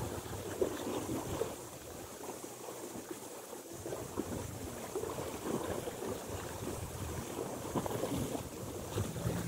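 Small sea waves lapping and splashing against shoreline rocks, an irregular soft wash.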